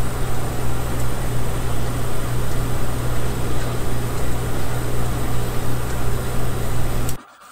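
Amplified microphone recording of computer fans and a ceiling fan: a loud, steady noise with a strong low hum. About seven seconds in it cuts off suddenly to near silence as RTX Voice noise suppression is switched on.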